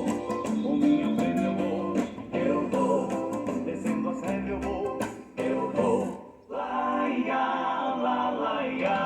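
Xote, southern Brazilian gaúcho dance music, with plucked guitar and an acoustic bass guitar playing along. The music breaks off briefly about six and a half seconds in, then comes back in.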